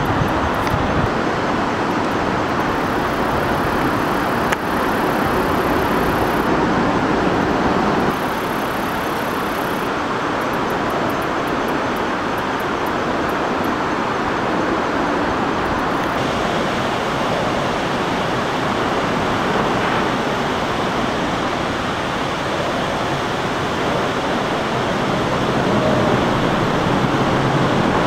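Steady rushing of water spilling over a low weir and across the rocks below it.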